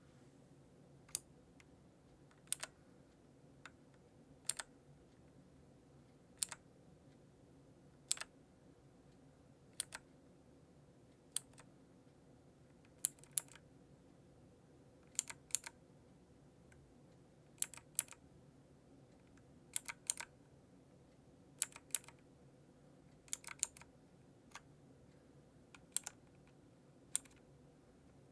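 Keys of a Micronics WIZMAX W101P optical-switch mechanical keyboard pressed one at a time. Each stroke is a sharp click, roughly one every one to two seconds, some coming as quick doubles, over a faint steady hum.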